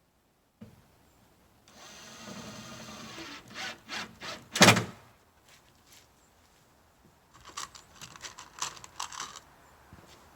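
Cordless drill running for about a second and a half as it drives a screw, followed by a few knocks and one loud thunk, then a burst of rapid clicks and knocks near the end.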